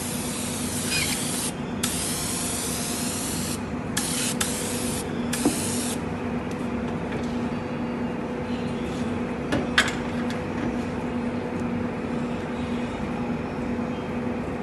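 Activator sprayed from an aerosol can onto hydrographic transfer film floating in a dip tank: a loud hiss in several bursts with short pauses, stopping about six seconds in. A steady low hum runs underneath throughout.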